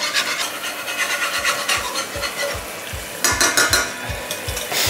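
A metal spoon stirring a simmering sauce in a stainless steel pot, scraping and knocking against the pan, with the sauce bubbling.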